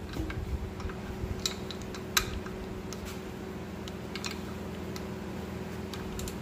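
Torque wrench ratcheting in light clicks on clutch pressure-plate bolts as they are tightened to 17 lb-ft, with a sharper click about two seconds in. A steady low hum runs underneath.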